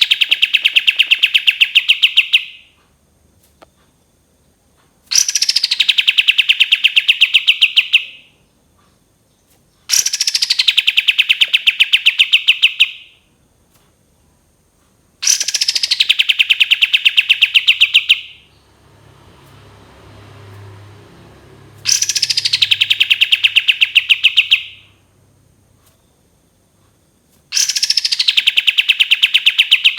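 Kapas tembak, a bulbul, repeating its long rattling 'tembakan' song phrase about every five and a half seconds. Each phrase lasts about three seconds: a fast run of notes that drops from high pitch into a rapid, even trill. A faint low rumble comes between the fourth and fifth phrases.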